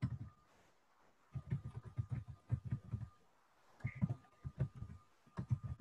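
Typing on a computer keyboard: two runs of quick keystrokes, several a second, with a short pause between them.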